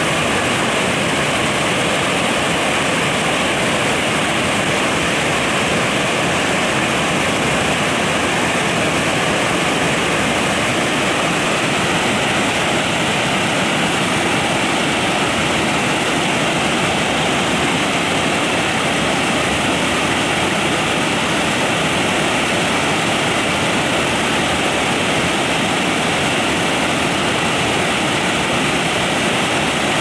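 Waterfall cascading over several dark rock ledges, a loud, steady rush of falling white water.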